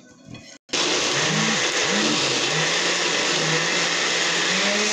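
Countertop blender switching on abruptly about half a second in and running at full speed, liquefying alfalfa and fruit in cold water. The motor's pitch dips and recovers a few times as it churns the load, then holds steady.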